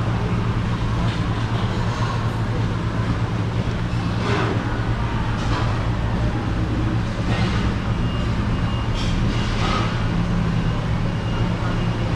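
Steady mechanical drone with a low hum, like ventilation or machinery running, with a few faint light clinks over it.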